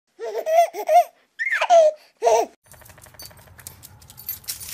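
A baby laughing in four short giggling bursts over the first two and a half seconds. Then faint low background hum and hiss with small clicks.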